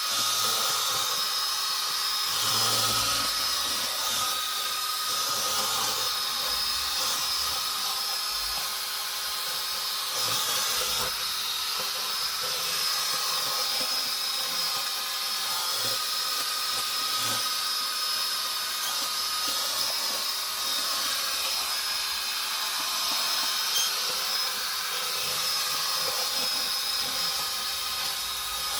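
Lejoy LD20 robot vacuum cleaner running: a steady suction-fan hiss with a constant high whine over it.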